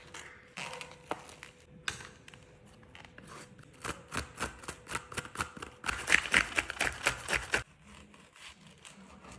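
Plastic cling film and a foam meat tray crinkling and crackling as a raw salmon fillet is unwrapped and lifted out. In the second half there is a dense run of quick crackles that stops abruptly near the end.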